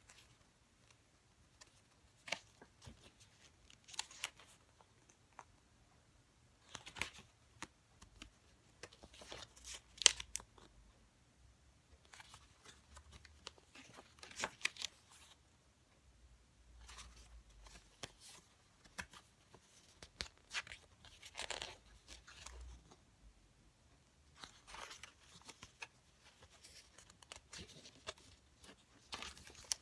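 Stiff, glossy photobook pages being turned by hand: irregular paper rustles and flaps with quiet gaps between them, and one sharper snap about ten seconds in.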